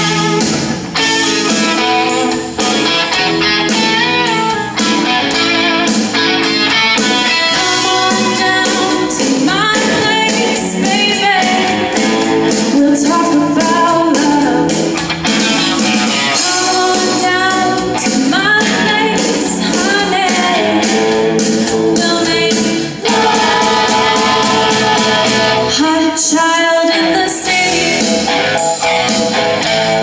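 A live rock band playing a song: singers over electric guitar, keyboard and a drum kit keeping a steady beat.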